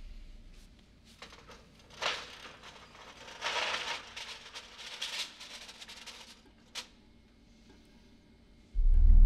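Film score music fades away. It leaves a few short, faint handling sounds and one sharp click in a quiet room. Loud score music comes back in near the end.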